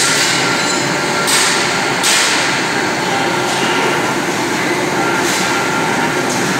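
Roll-forming mill running, steel strip feeding off a coil through rows of forming roll stands: a loud, steady industrial din with short hissing surges every second or two.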